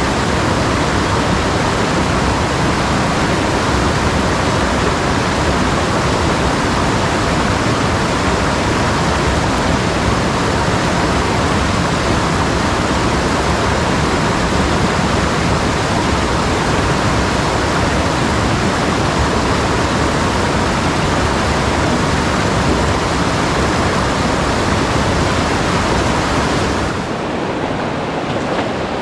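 Mountain stream rushing over boulders through rapids, a loud, steady rush of whitewater. About 27 s in it changes to a slightly softer rush of water.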